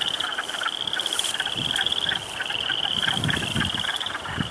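A chorus of frogs calling from the pond: high, pulsed trills overlapping one after another without a break.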